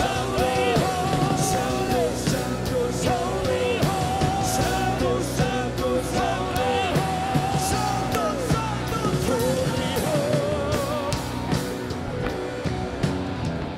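Live rock band playing loudly, with drums and cymbals driving the beat and voices singing a melody over it.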